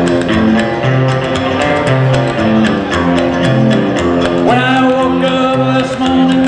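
Country band playing an instrumental break on upright bass, acoustic guitar and electric guitar, the bass walking under a steady strummed rhythm with a clicking beat. A bright lead line comes in about four and a half seconds in.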